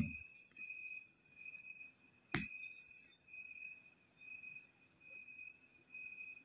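Faint, regular insect-like chirping, a high pulse repeating about twice a second, with a single sharp click a little over two seconds in.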